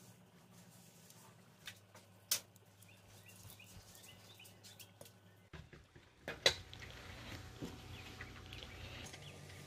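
A few sharp clicks and knocks of a utensil against a metal cooking pot, the sharpest about two and six and a half seconds in, over a low steady hum and faint chirping.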